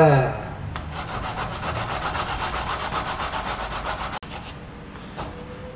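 Raw potato being grated on a flat handheld grater, a rasping scrape in quick, even strokes that stops about four seconds in.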